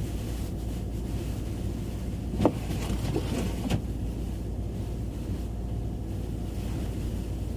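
Blizzard wind blowing steadily as a low rumble, with two brief louder gusts or bumps about two and a half and three and a half seconds in.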